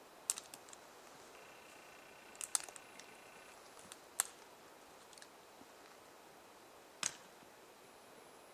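Scattered sharp clicks and ticks over a faint steady hiss. The loudest is a single knock about seven seconds in, and a faint steady high tone lasts about two seconds near the middle.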